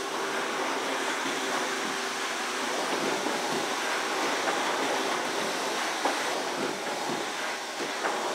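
Carpet-cleaning extraction machine's vacuum running, a steady rushing noise with a few faint clicks.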